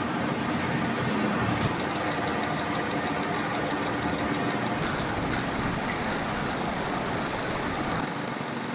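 Metal lathe running steadily while machining a ball joint, a constant machine hum with several steady tones. The low rumble eases slightly near the end.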